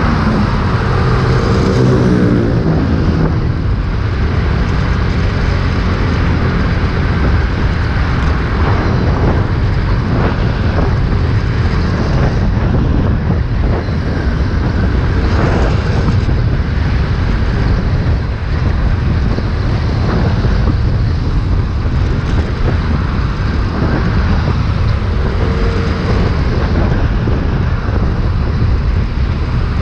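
Riding noise from a motor scooter at road speed: steady wind rumble on the microphone over the scooter's engine and the tyres and engines of surrounding traffic. An engine's pitch rises and falls briefly about a second in and again near the end.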